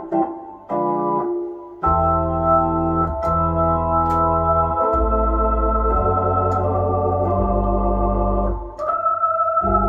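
Hammond H112 tonewheel organ playing a few short chord stabs that ring on and fade, then sustained chords over deep bass notes, changing chord several times. It is heard through the organ's spring-line reverb.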